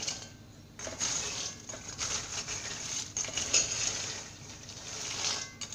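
Cocoa beans dry-roasting in a metal pot, rattling and scraping as they are stirred, with scattered small clicks.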